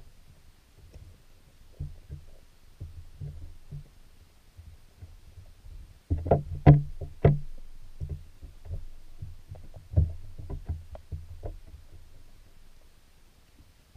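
Muffled underwater knocks and low thumps, irregular, with a cluster of louder, sharper knocks about six seconds in and another group around ten seconds.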